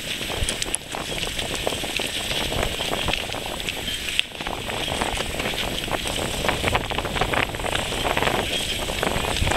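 Wind buffeting the camera's microphone over choppy water: a steady low rumble with a dense, continuous crackle.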